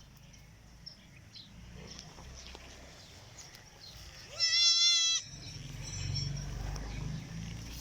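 Goat kid bleating once: a single high, wavering call lasting under a second, about halfway through. A low rumble follows.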